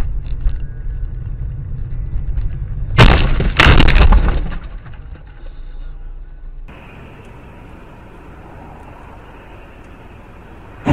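Car collision heard from inside a car: two loud crunching bangs about three seconds in, over the low rumble of the car on the road. After that comes quieter, steady in-car road noise, and a sharp knock right at the end.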